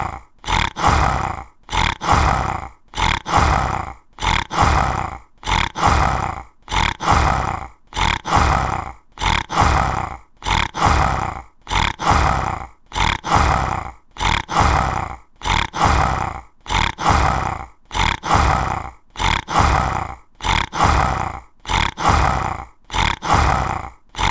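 Tiger growls and roars played as a loop: a short growl and then a longer one, repeating evenly about every second and a half.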